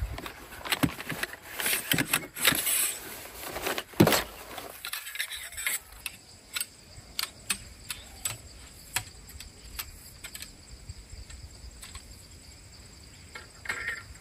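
Rustling and crinkling of a nylon gear sack being pulled from a car's boot, with a sharp knock about four seconds in. Then scattered light clicks and clinks as tent poles are handled. A steady high insect drone runs underneath.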